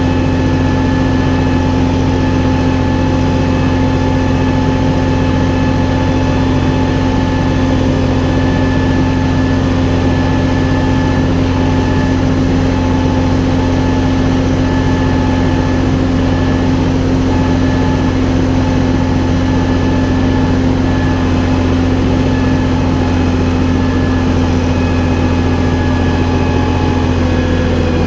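Valtra BF-75 tractor's diesel engine running at a steady speed, dipping slightly in pitch near the end.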